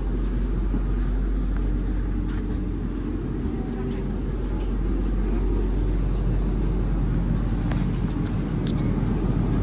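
81-740.4 Rusich metro train running: a steady low rumble with scattered faint clicks and rattles.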